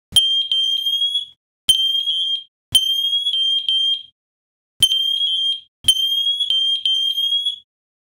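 MATelec smoke alarms in alarm mode, set off together by a network test from the wireless remote: a loud, high-pitched alarm tone in five bursts of one to two seconds each, every burst opening with a click.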